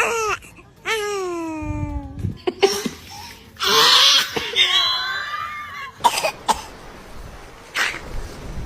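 A baby sneezing and coughing: two high vocal sounds falling in pitch near the start, a loud breathy sneeze about four seconds in, then a few short sharp bursts.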